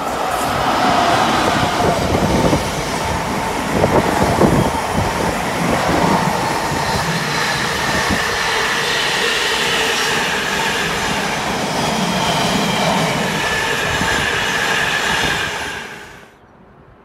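Container freight train hauled by a pair of Class 90 electric locomotives passing close by. The wagons make a continuous loud rumble and clatter on the rails, with a faint rail squeal over it. The sound falls away abruptly about a second before the end.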